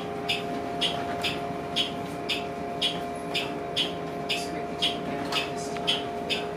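Cabin of a New Flyer Xcelsior XHE40 hydrogen fuel-cell bus driving slowly: a steady hum with two held tones, and a sharp tick repeating evenly about twice a second.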